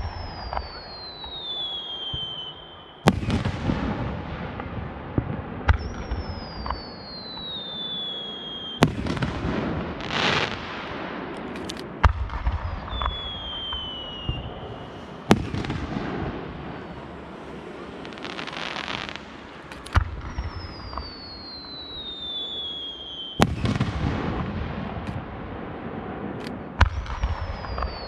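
Aerial fireworks shells bursting with sharp booms every three to four seconds, seven in all. Most are led by a whistle falling in pitch as the shell rises, with crackling fizz after some of the bursts.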